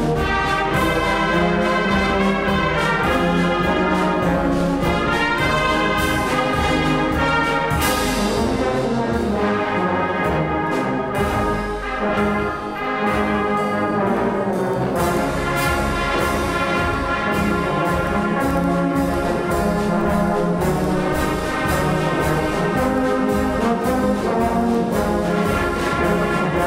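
Brass band music, with trumpets and trombones playing a full-toned piece. It eases briefly about twelve seconds in.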